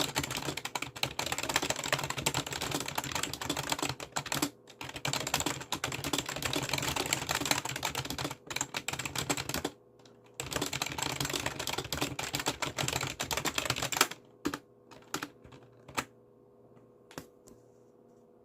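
Fast continuous typing on a Daiso budget keyboard, a rapid clatter of key clicks with two brief pauses. About fourteen seconds in the typing stops, leaving a few scattered single key presses.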